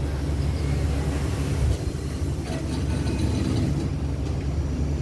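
Steady low diesel hum from a standing State Railway of Thailand rapid passenger train idling at the platform.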